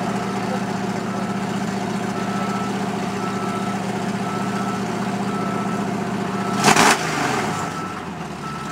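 A big engine idling steadily, with a vehicle's reversing beeper sounding about once a second over it. About two-thirds of the way through comes one short, loud burst of noise, after which the engine's low sound fades while the beeping goes on.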